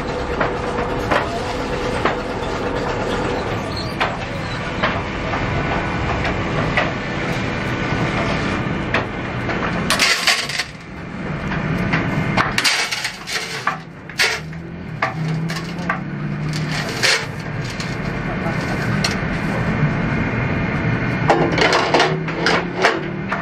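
Workshop noise: steel chain clinking and rattling as it is handled, with sharp metallic knocks. A steady machine runs for about the first ten seconds, then the clinks and knocks come more sparsely, with men's voices in the background.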